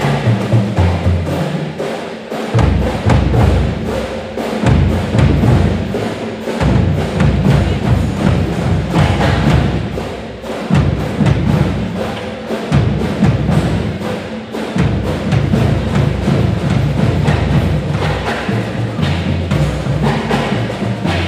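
School pep band playing: bass drums and percussion beat a steady rhythm over brass and a sousaphone bass line.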